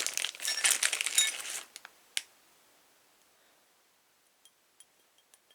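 Plastic parts bag crinkling for about a second and a half, then a few light clicks and clinks of small metal door-hardware pieces being handled and set down.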